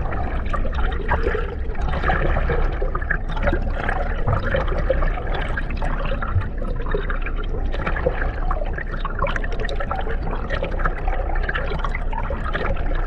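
Water splashing and churning, heard muffled, with many small crackles over a steady low rumble.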